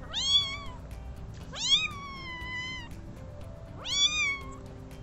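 A hungry three-week-old bottle-fed kitten mewing three times while it waits for its bottle: high, thin cries that rise then fall in pitch, the middle one the longest.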